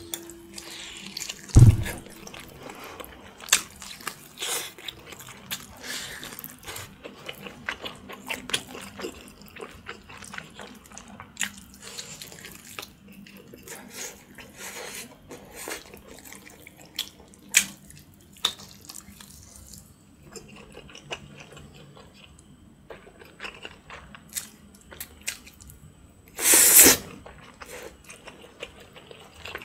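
Close-miked wet eating sounds: meat being chewed and sucked off a large boiled pork spine bone held in the hands, with many small wet smacking clicks. There is a sharp thump about two seconds in and a loud half-second burst near the end.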